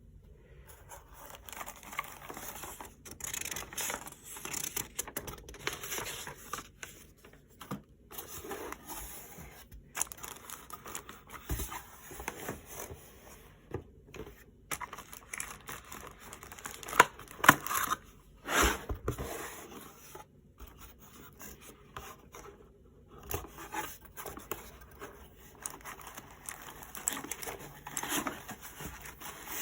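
Packaging being opened by hand: cardboard and plastic wrap rustling, scraping and tearing in an uneven run, with a few louder knocks about two-thirds of the way through as the contents are handled.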